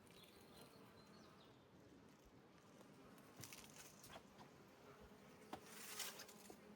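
Near silence: faint outdoor quiet with a steady insect buzz and a few soft taps, the loudest about six seconds in.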